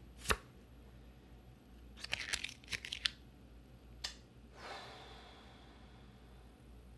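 A Pokémon trading card being crushed in a fist: a quick run of crinkling, crunching cracks, set off by a sharp click before and after and followed by a soft rustle.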